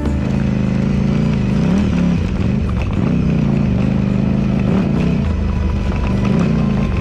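KTM 790 Adventure R's parallel-twin engine running under way, its revs rising and falling repeatedly with the throttle.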